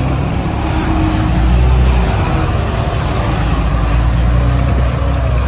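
Heavy earthmoving machinery's diesel engine running steadily under load, a deep rumble that swells a little about two seconds in.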